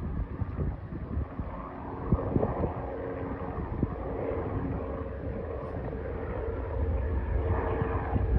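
Distant Bell 407GXi helicopter in flight: its single turboshaft engine and rotor give a steady hum, with some wind on the microphone, growing a little louder near the end.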